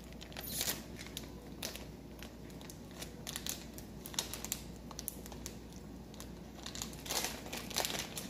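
Plastic Skittles candy bag crinkling as it is pulled and torn open by hand and teeth, a run of scattered crackles that bunch up near the end.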